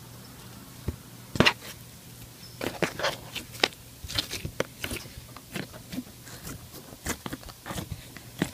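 Slime being squeezed and poked by hand, giving irregular squishy clicks and pops from about a second in, over a faint steady low hum.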